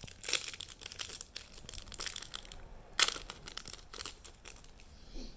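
Foil Pokémon booster pack wrapper crinkling as it is torn open, an irregular run of crackles with the sharpest about three seconds in.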